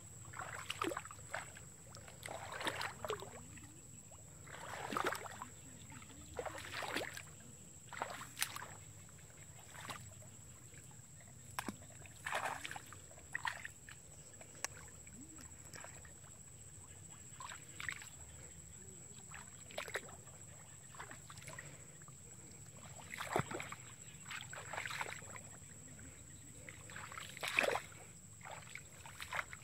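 Feet wading through shallow water in a grassy ditch, an irregular slosh and splash every second or two.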